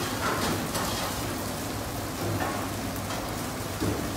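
Potato filling frying in hot oil in a nonstick pan: a steady sizzle.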